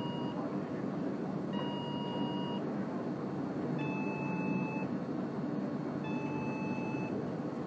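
Embedded Artists LPCXpresso base board's buzzer beeping a fire-alarm warning: steady tones about a second long, repeating every two seconds or so. About four seconds in, the beeps drop a step in pitch as the rotary switch adjusts the buzzer's pitch.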